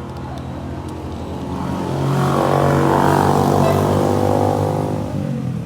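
A motorcycle passing by, its engine growing louder to a peak about three to four seconds in, then fading away.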